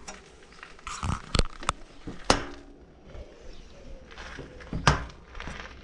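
Steel door of a homemade smoker being shut and fastened with a toggle-clamp latch: a run of metal knocks and clicks, the sharpest about two seconds in and another near the end.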